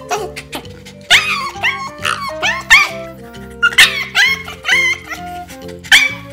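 Shiba Inu giving the breed's pig-like squealing scream in protest at a nail trim that has not yet begun: a rapid string of sharp, high squeals, each rising then falling in pitch, coming in bursts about two a second. Background music plays underneath.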